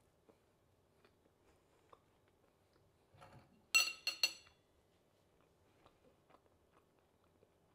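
A person chewing quietly on a mouthful of food, with a quick run of three sharp, ringing clinks of cutlery against a plate about halfway through.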